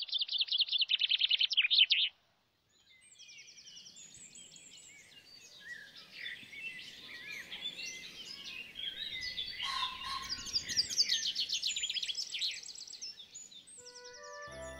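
Small songbirds singing: fast, repeated high trills over a busy chorus of chirps and whistles. The song breaks off completely for a moment about two seconds in, then resumes from several birds.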